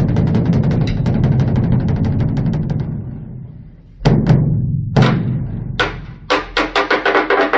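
Korean Buddhist dharma drum (beopgo) beaten with two sticks: a fast roll that dies away, then a few single heavy strokes about a second apart, then quick strokes picking up again near the end with a brighter, ringing sound.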